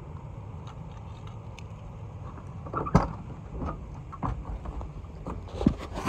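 A van's front door is unlatched and opened, with one loud clack about halfway through, then a few lighter knocks and rattles as someone gets into the cab.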